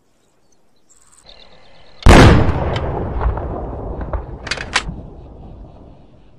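A single loud gunshot about two seconds in, followed by a long rolling echo that fades over about three seconds, with a few sharp clicks in the tail.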